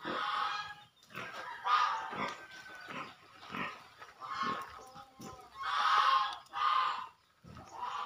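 An animal calling over and over: short calls about a second apart, some louder than others.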